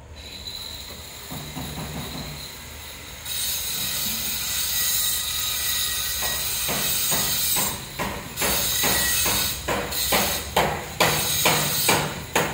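Woven plastic sacks rustling and crinkling as they are handled close up: a harsh hiss that swells about three seconds in, then breaks into quick irregular crinkles through the second half.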